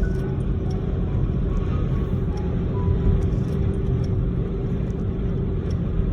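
Steady low rumble of a car driving, heard from inside the cabin, with a faint steady hum running through it.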